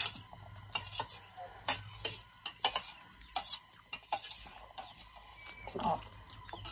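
An eating utensil scraping and clinking against a plate of fried noodles as they are eaten: a run of short, irregular clicks and scrapes.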